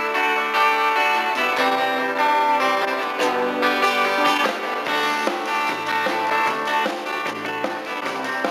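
Country-rock band playing an instrumental passage led by guitars, with strummed chords and melodic guitar lines.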